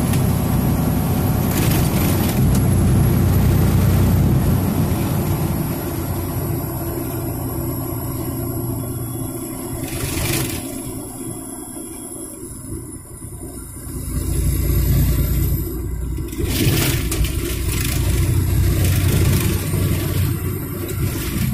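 Steady low road-and-engine rumble of a vehicle driving at highway speed, heard from inside the cabin; it eases off in the middle and builds again after about fourteen seconds. A few short thumps cut through it, one near ten seconds in and another near seventeen.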